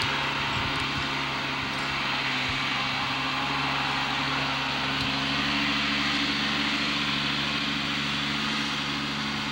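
Small tractor's engine running steadily at one pitch, under a loud, even hiss.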